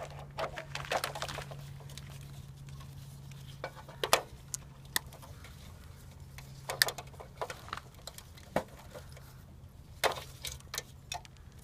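Wire cutters snipping the wires off a CRT television's circuit board: irregular sharp clicks and snips spread a second or more apart, with small clusters near the start and near the end.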